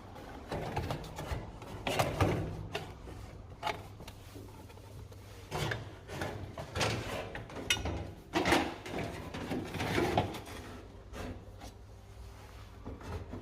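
Workshop handling sounds: scattered knocks, clunks and scraping of parts and tools being worked on a truck, over a low steady hum.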